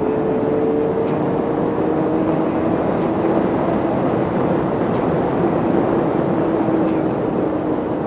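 Sport motorcycle cruising at speed, heard from a helmet-mounted camera: loud wind rush over the microphone mixed with the engine's steady hum.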